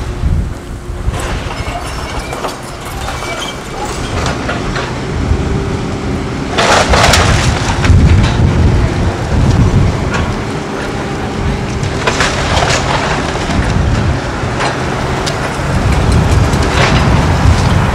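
CAT 314C tracked excavator running as it tears down a wood-frame house: a steady engine and hydraulic drone, with crashes of splintering timber and falling debris about six and a half seconds in, again around twelve seconds, and near the end.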